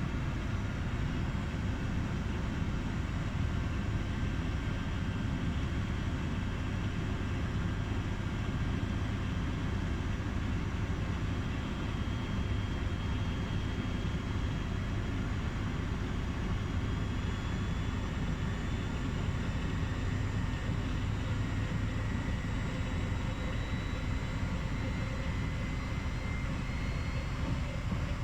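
Miele washing machine running with a steady low hum and a faint motor whine that rises slowly in pitch over the second half, during a brief suds-lock, when the machine senses excess foam in the drum during spin.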